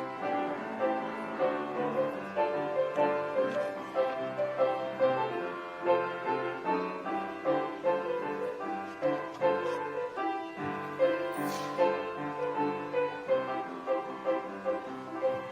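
Instrumental piano music, a steady run of played notes.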